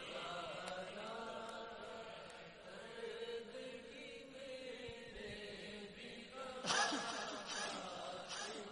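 Faint male voices chanting a slow, wavering devotional drone in a pause of the sung recital. A brief louder burst comes about seven seconds in.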